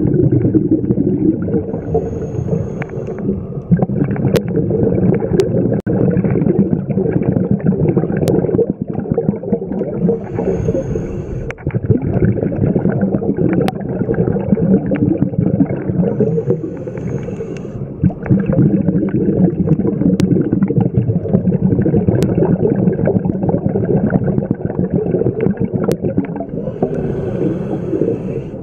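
Underwater sound of scuba breathing: a steady low rumble of gurgling exhaled bubbles from a regulator, with a brief higher hiss about every seven seconds and a few sharp clicks.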